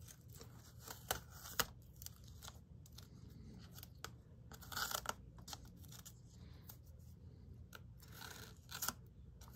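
Masking tape being peeled off a freshly airbrushed card to uncover a painted checkerboard: faint crackling and ticking as the tape lifts, with louder rips about five seconds in and again near the end.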